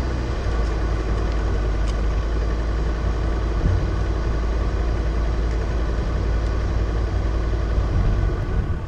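Off-road SUV driving along a rough dirt forest track: steady engine and tyre rumble, heavy in the low end, with the odd small knock from the track.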